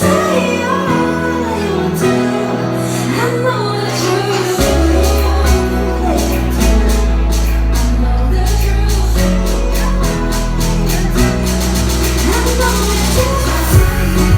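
Live pop song played by a band, with a woman singing lead over sustained chords. About four and a half seconds in, a deep bass comes in under a steady drum beat.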